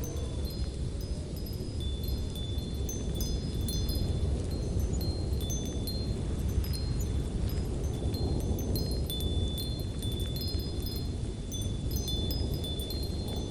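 Steady low rush of light wind, with high, tinkling chime notes sounding at irregular intervals over it.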